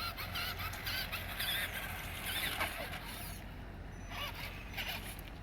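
Electric motor and drivetrain of a toy RC car whining in short bursts, the pitch rising and falling as the throttle changes.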